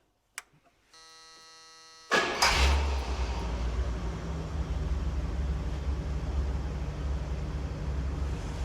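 A 1976 Cadillac Eldorado's 500 cubic inch V8 starting after an oil change. A steady in-car warning buzzer sounds for about a second, then the engine catches suddenly about two seconds in, flares briefly and settles into a steady idle.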